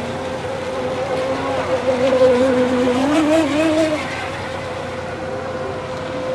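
Electric-powered 1/10-scale RC hydroplanes running on the water: a steady high motor whine, joined about two seconds in by a second, lower whine that rises and wavers for a couple of seconds as another boat passes and turns.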